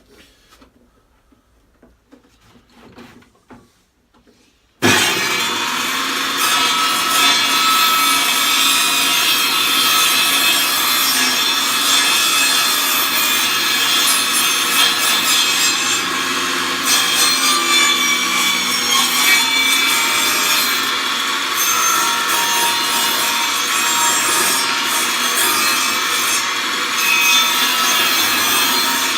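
Faint handling sounds for about five seconds, then a table saw cuts in suddenly and runs steadily. Its blade is shaving the edge of a wooden disc as the disc is turned into it on a circle-cutting jig.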